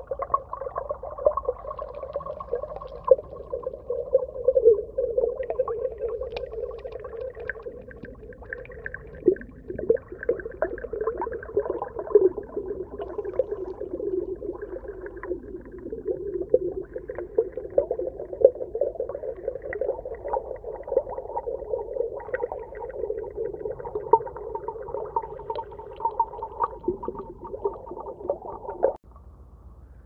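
Underwater ambience: a steady, wavering hum with frequent soft clicks and crackles, cutting off abruptly about a second before the end.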